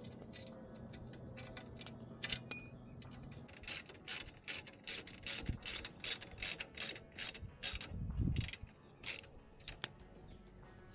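Hand ratchet wrench clicking in quick, even back-and-forth strokes, about three a second, as the heat shield bracket bolts are run in. There is a dull knock about eight seconds in.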